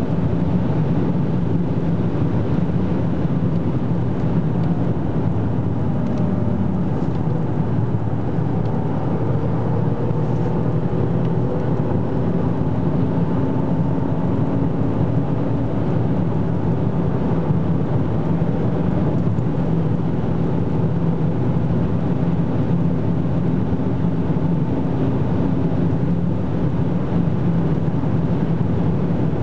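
Cabin noise of an Opel Insignia OPC at high autobahn speed: steady wind and tyre roar over its turbocharged 2.8-litre V6. The car slows from about 235 to 175 km/h and then speeds up again.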